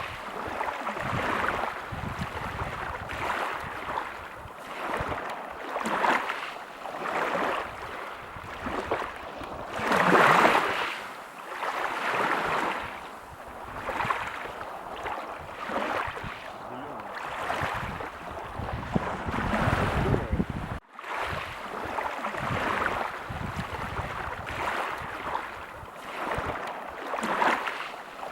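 Ocean waves breaking on a beach, surging in and washing back every few seconds, with the biggest wave about ten seconds in. The sound drops out for a split second about three quarters of the way through.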